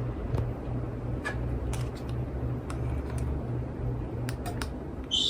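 Hampton Bay Southwind V ceiling fan running, its motor hum pulsing in a steady rhythm with scattered light ticks; it has some bearing noise, which the owner puts down to heavy use.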